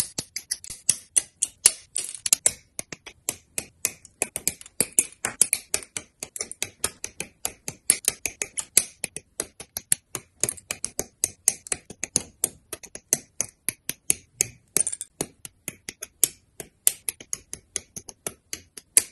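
Plastic model-kit parts being snipped from their runners with hobby nippers: sharp clicks in quick succession, several a second.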